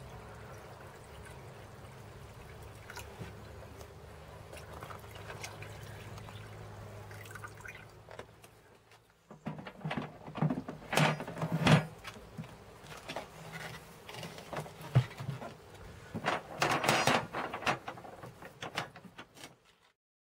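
Liquid pouring from a plastic jug into a Rug Doctor carpet cleaner's clean-water tank, a steady stream for about nine seconds. Then irregular plastic knocks and clunks as the waste-water tank is slid back into the machine and its filter housing fastened.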